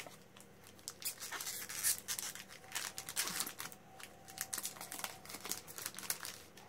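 Foil wrapper of a Magic: The Gathering booster pack crinkling as it is torn open and the cards are pulled out, a run of irregular crackles and rustles.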